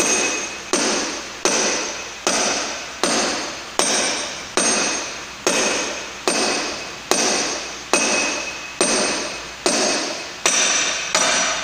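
Hand-held steel bar striking down on a metal workpiece, a steady run of about fifteen sharp metal-on-metal blows, roughly one every 0.8 s, each ringing and fading before the next.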